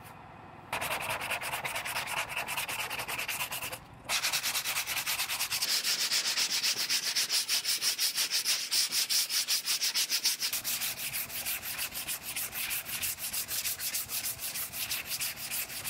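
Body filler being hand-sanded with a sanding block on a car's side panel: quick, even back-and-forth scraping strokes of sandpaper, with a short pause about four seconds in.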